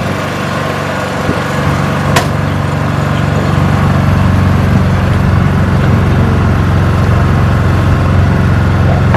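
Ride-on miniature train's engine running steadily with a low hum as the train gets under way, growing louder over the first few seconds. A single sharp click comes about two seconds in.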